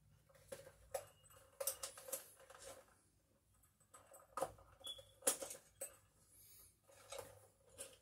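Hand tools, screwdrivers among them, clicking and clinking against each other in a tool bag as they are rummaged through: a scattered run of irregular light knocks and clinks.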